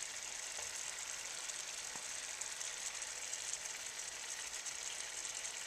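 Steady hiss of steam from water heating in an open Ninja Cooking System pot, with a couple of faint clicks as silicone cupcake cups are set on its wire rack.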